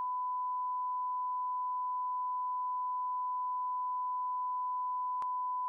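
TV test-card tone: a single steady beep held at one pitch, cutting off suddenly at the end, with a faint click about five seconds in.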